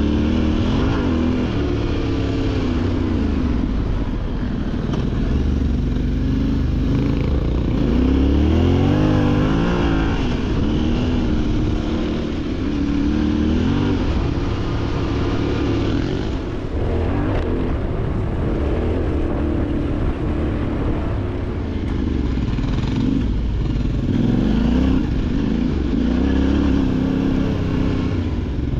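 Motorcycle engine running under way, its pitch rising and falling with the throttle, with a clear run up in revs about eight to ten seconds in.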